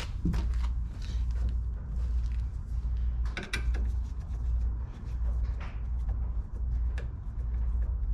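Sharp clicks and knocks of car interior trim being worked loose by hand, over a low pulsing rumble.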